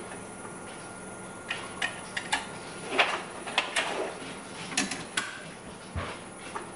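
A string of short, sharp clicks and knocks as blood tubes are set into a benchtop centrifuge and its lid is shut.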